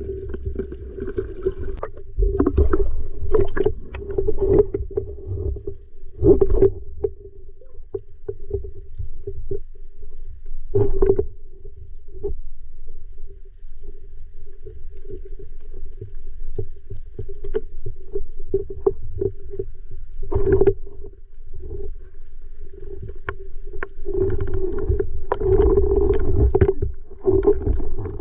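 Muffled underwater sound picked up through an action camera's waterproof housing: a steady low hum under water movement, with scattered short clicks and knocks.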